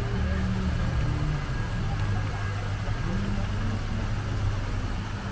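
City-street ambience: a steady low hum of road traffic, with voices of passers-by.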